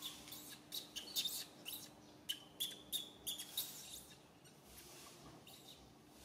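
Baby macaque crying to nurse: a rapid run of short, high-pitched squeals that stops about three and a half seconds in.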